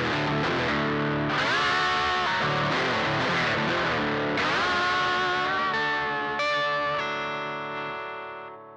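Closing music on distorted electric guitar: chords with upward bends, ending on a long held chord that fades out near the end.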